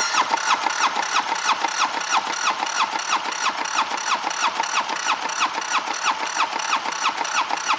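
Starter motor cranking a Polaris FST 750cc Weber turbo twin engine over without firing, since it has no injectors fitted, during a compression test on the alternator-side cylinder. The starter makes a steady whine that dips about five times a second as the engine cranks, with the gauge reading 149 PSI.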